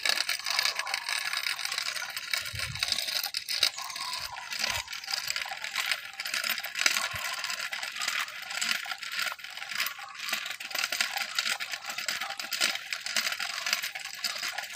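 Measuring wheel rolling along a concrete sidewalk, with a steady run of small clicks and rattling.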